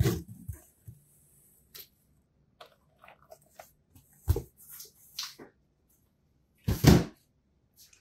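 Cardboard graphics-card retail box being handled and set down on a desk: scattered light rustles and taps, a dull thump about four seconds in, and a louder sound lasting about half a second near the end.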